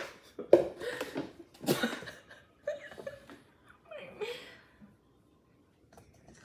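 Young people's stifled laughter and giggling, in several short bursts over the first five seconds, then dying away.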